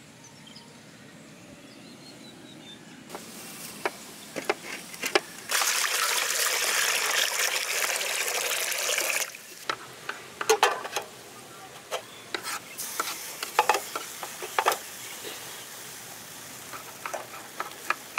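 Water poured out in a steady stream for about four seconds, with clinks and knocks of utensils against a vessel before and after.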